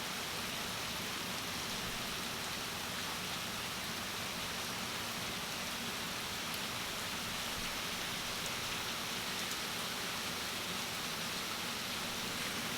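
Heavy, steady rain pouring down, a continuous even hiss of downpour with no let-up.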